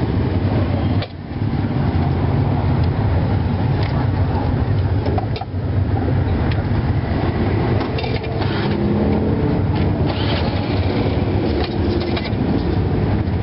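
Steady street traffic noise with a low engine rumble, unbroken through the whole stretch, with a few faint light knocks over it.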